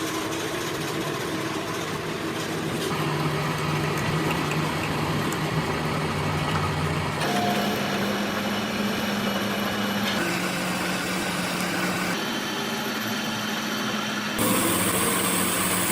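Steady machinery running with a low hum. Its pitch and tone change abruptly every few seconds as the footage cuts between takes.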